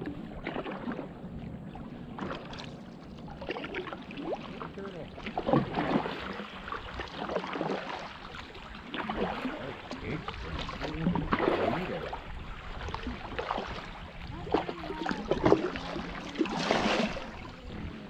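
Kayak paddle dipping and pulling through calm river water, an uneven stroke every second or two with splashes and drips off the blade.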